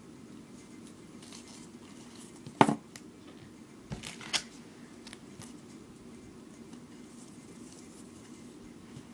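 Cardboard duct-tape-roll core handled and knocked against a cutting mat: one sharp knock about two and a half seconds in, then two lighter knocks about four seconds in, with faint rustling of duct tape in between.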